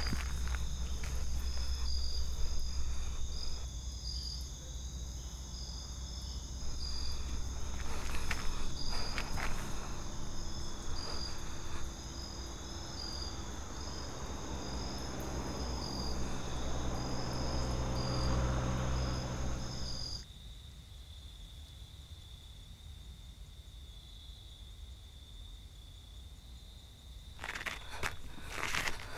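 Crickets chirping in a steady, pulsing high trill over a low rumble that swells and then cuts off abruptly about two-thirds of the way in. Near the end, footsteps on a rough road surface.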